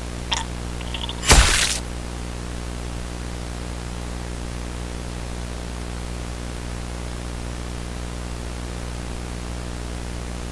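Steady hiss of static with a low electrical hum underneath. About a second in comes one short, loud burst of noise, and the hiss then runs on unchanged.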